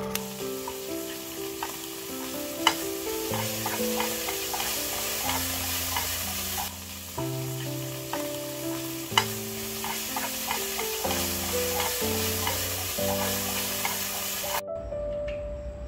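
Food sizzling in a hot pan while being stirred, with a few sharp clinks of a utensil against the pan, over background music. The sizzle cuts off suddenly near the end, leaving the music.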